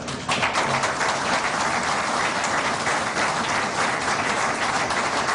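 Audience applause, starting abruptly just after the opening and keeping up at an even level.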